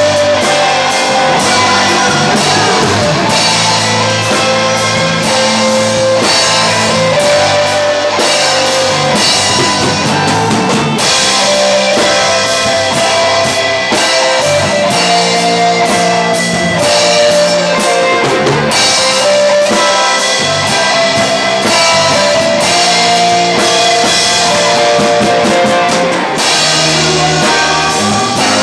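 A live band playing rock music, with guitar and drum kit.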